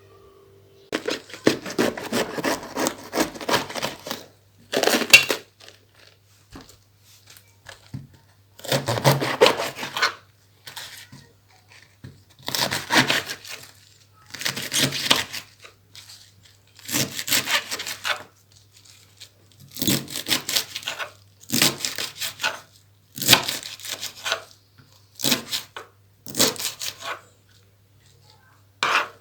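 Raw cabbage being cut up by hand: about a dozen separate bouts of crisp crunching and rasping, each one to two seconds long, with short pauses between them.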